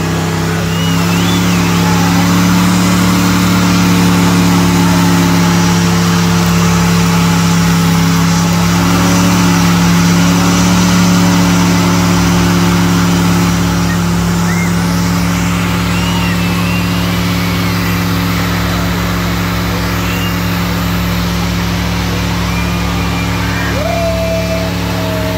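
GMC S-series compact pickup doing a burnout: the engine is held at high, steady revs while the rear tires spin on the pavement and smoke.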